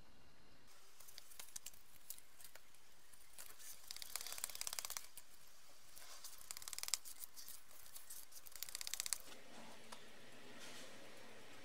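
Filler spreader scraping across a paper pad as body filler is mixed: light scrapes at first, then three bursts of quick scraping strokes, with softer rubbing near the end.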